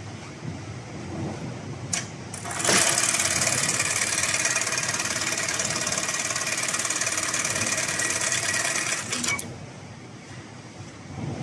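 HIGHTEX computerised (CNC) pattern sewing machine stitching through a braided rope dog leash to close its loop. Two sharp clicks come about two seconds in, then the machine runs at a fast, even stitch rate for about six and a half seconds and stops abruptly.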